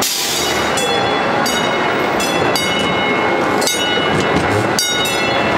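Small amusement-park train ride rolling along its track, with irregular sharp clacks from the wheels over a steady, loud background noise.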